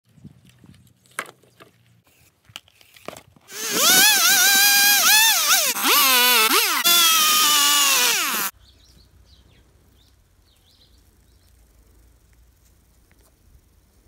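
A few light knocks, then a Stihl two-stroke chainsaw running at high revs for about five seconds, its pitch dipping and recovering as it bogs under the cut through a thin wooden post; it stops abruptly, leaving a faint low rumble.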